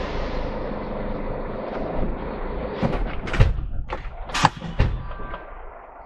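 Lorry engine running steadily, fading about halfway, then five or six sharp knocks and thuds about half a second apart.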